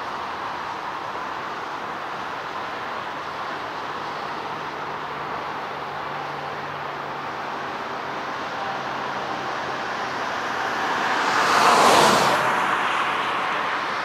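Boeing 747-8F cargo jet's four GEnx-2B engines during touchdown and landing roll: a steady jet rumble and hiss that swells to its loudest about twelve seconds in as the aircraft passes, then eases off.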